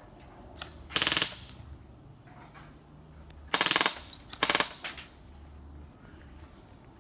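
Airsoft guns firing short rapid bursts: one burst about a second in, then a longer burst and two brief ones between about three and a half and five seconds in.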